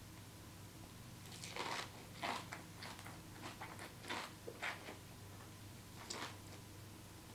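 Close-miked eating sounds: a mouthful of kimchi-wrapped noodles being bitten and chewed, with soft wet smacks and crunches that come irregularly from about a second and a half in. A faint steady hum sits underneath.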